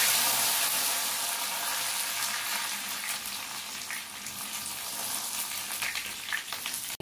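Herbs frying in hot oil in an iron kadai: a loud sizzle that starts suddenly as they go in, then slowly settles, with scattered crackles near the end.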